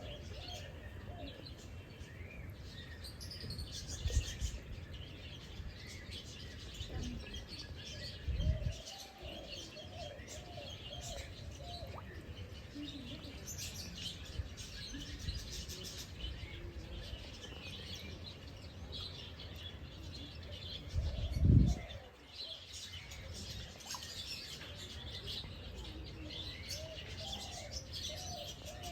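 Several birds chirping and calling steadily, with short high chirps and some lower wavering calls. Three brief low thumps break in, the loudest about two-thirds of the way through.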